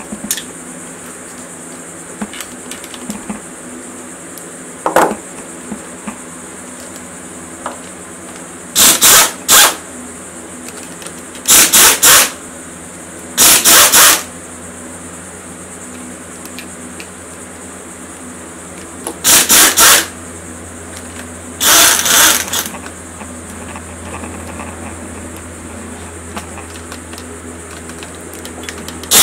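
Pneumatic impact wrench hammering in five short bursts, each under a second, as nuts are run off the cylinder head of a classic Mini A-series engine.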